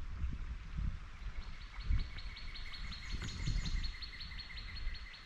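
A bird singing a rapid, even series of high notes, about five a second, starting about a second and a half in and running on to near the end, over a low background rumble.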